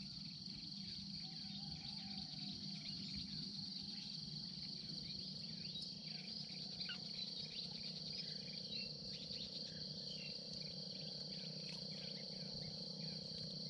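Steady high-pitched chorus of crickets and other insects, with faint scattered chirps and a low steady hum underneath.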